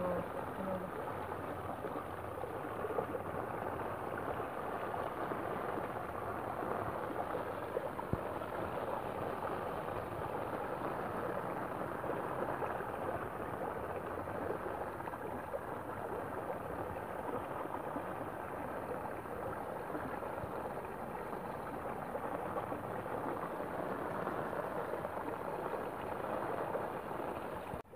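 Muddy stream water flowing steadily, an even rushing sound that does not change.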